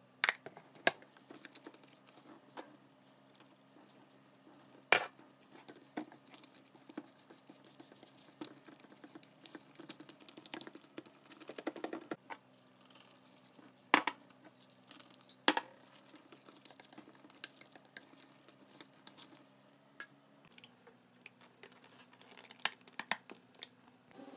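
A metal wire whisk stirring a thick, wet mixture of chopped herbs and egg in a bowl: soft squishing and scraping, broken by a few sharp clicks of metal knocking against the bowl.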